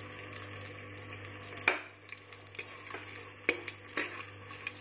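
Sliced onions and green chillies sizzling in hot oil in a clay pot, with a steady frying hiss. A metal spatula stirs them, giving a few sharp scrapes and knocks against the pot.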